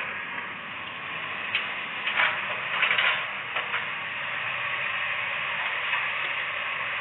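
Hydraulic excavator running steadily, with a few short clanks and scrapes between about one and a half and three and a half seconds in.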